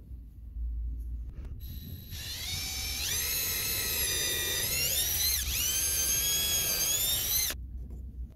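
Cordless drill boring a hole at the edge of a plywood insert plate: a whine that rises as it spins up about two seconds in, dips briefly partway through, and cuts off suddenly near the end.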